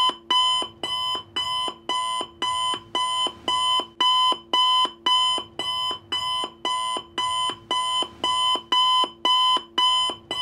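Countdown timer sound effect: an alarm-clock-like electronic tone pulsing evenly about twice a second, marking the ten seconds given to answer the riddle.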